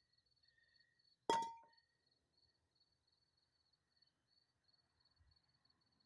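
A single sharp metallic clink about a second in, ringing briefly at a few clear pitches before it fades, as metal knocks against metal. A faint, high, pulsing trill runs underneath.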